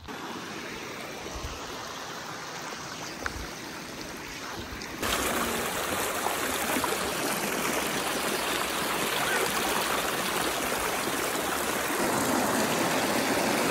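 Shallow creek running over rocks: a steady rush of water that jumps louder about five seconds in and stays loud.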